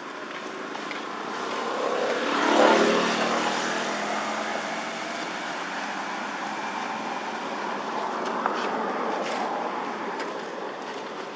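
A motor vehicle passing close by: its engine note swells to a peak about two and a half seconds in, then drops in pitch as it moves away. Traffic noise carries on after it.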